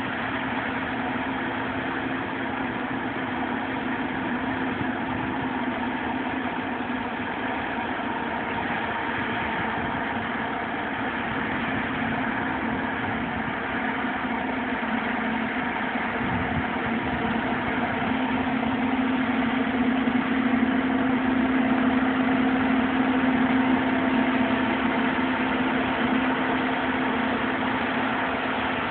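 A CLAAS Lexion 520R combine harvester working in the field with a tractor hauling a grain trailer alongside, their engines running in a steady drone with a low hum. The drone grows louder a little past halfway, then eases slightly near the end.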